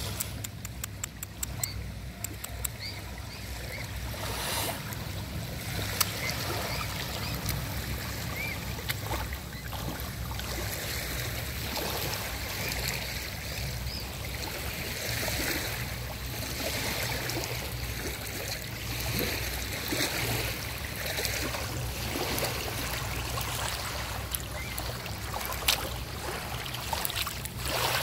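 Small river waves lapping and trickling at a stony shoreline, with scattered small splashes over a steady low rumble.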